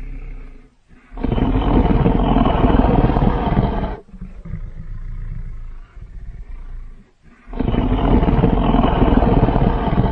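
Designed creature roars for a fictional hybrid dinosaur, layered from big-cat, bear, gorilla and film-monster recordings: two long, loud roars of about three seconds each, with a quieter, lower growl between them.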